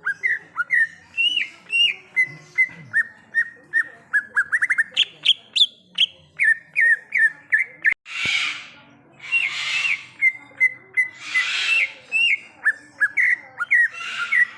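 Greater green leafbird (cucak ijo) singing: a fast, continuous run of short whistled notes, with several harsh rasping bursts in the second half.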